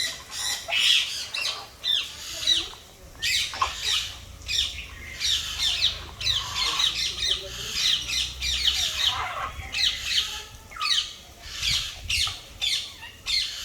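Parrot squawking: a long run of short, shrill calls repeated in quick succession, with brief pauses between groups.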